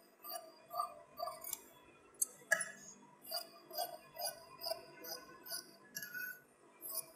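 Tailor's scissors snipping through stitched blouse fabric and lining, a steady run of short snips about two to three a second.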